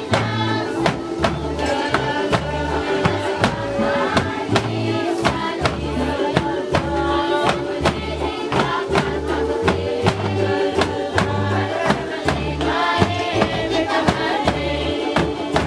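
Music with voices singing together over a steady drumbeat and a bass line.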